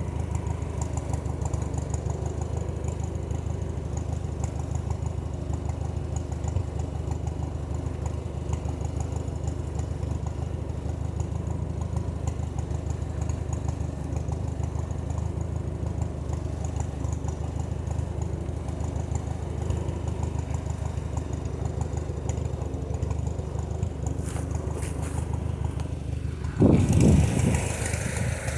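Vehicle engine idling steadily, then a sudden louder rumble near the end.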